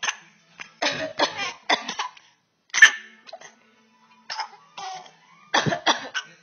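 Short coughs in several bursts of one to four coughs with pauses between: a mother coughing and her baby imitating the cough.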